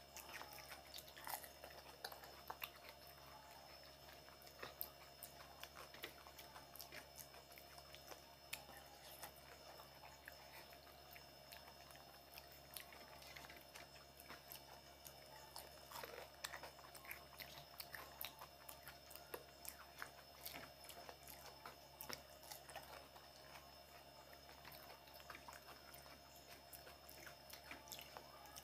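Faint chewing and crunching of fuchka (pani puri), with many small, irregular clicks and cracks as the crisp puri shells are broken open, filled with tamarind water and eaten.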